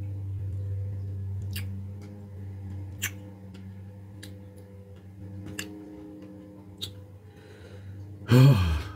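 A man chewing a mouthful of barbecue brisket burger: about five wet smacking clicks, a second or so apart, over a steady low hum. Near the end comes one short, loud vocal sound that falls in pitch.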